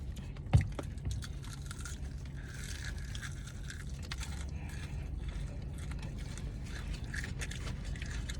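A person eating fried chicken: crunching bites and chewing, with small scraping and rustling clicks, over a low steady hum. A sharp knock about half a second in is the loudest sound.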